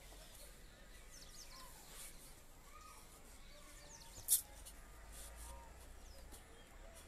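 Faint birds chirping in short high calls, with one brief, sharp, high-pitched click or chirp a little after four seconds in.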